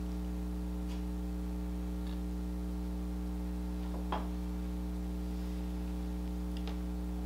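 Steady low electrical hum, with a few faint clicks and one light knock about four seconds in as a glass mason-jar mug is handled and passed across.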